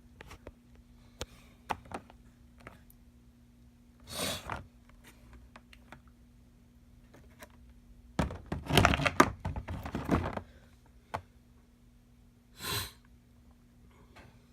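A model train's box and packaging being handled: scattered light clicks and taps, a louder spell of rustling and knocking lasting about two seconds midway, and two short swishes. A faint steady low hum sits underneath.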